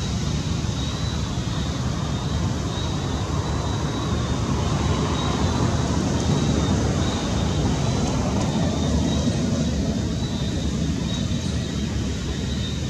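Steady low background rumble with a faint thin high tone above it, and no distinct events.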